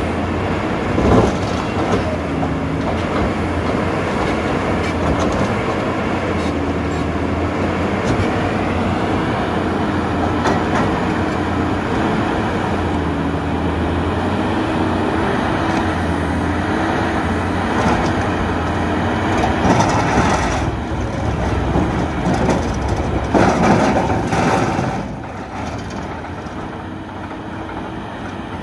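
Terex RH30F hydraulic excavator working an Xcentric XR80 vibrating ripper into rock: the engine runs under load beneath a continuous hammering rattle of the ripper tip breaking rock. The work grows rougher and louder for a few seconds past the middle, then settles quieter near the end.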